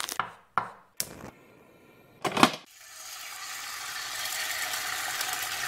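Animated-logo sound effects: a few short sharp clinks and taps, like metal utensils landing, then a rising shimmering whoosh that swells for about three seconds.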